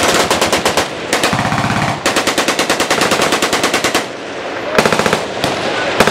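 Machine guns firing long, rapid bursts of automatic fire, with more than one gun going at a time. A short lull comes about four seconds in, then shorter bursts start again.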